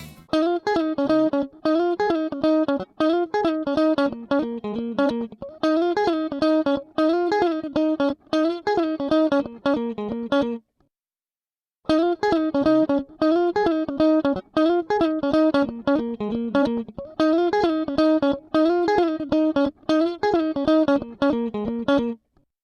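A recorded riff of plucked guitar notes, played through a studio compressor for comparison. The roughly ten-second phrase plays twice, with a second of silence between.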